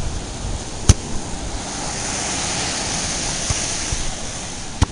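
Surf and wind on a beach: a steady rushing noise, rough waters, with a sharp click about a second in and another near the end.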